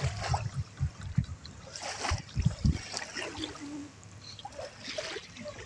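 Wooden paddles dipping and splashing in shallow water as a small outrigger boat is paddled away from the shore, with irregular low thumps throughout.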